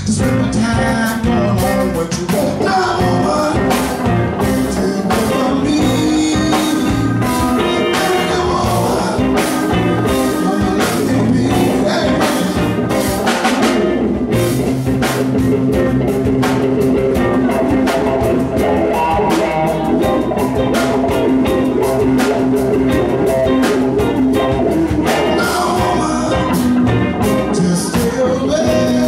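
Live band playing a blues-rock number: electric guitars, bass and drum kit, with a male lead vocal.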